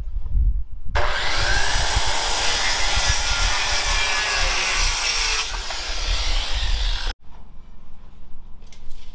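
A saw cutting through wood, a steady rasping noise for about six seconds that starts abruptly about a second in and cuts off sharply near the end.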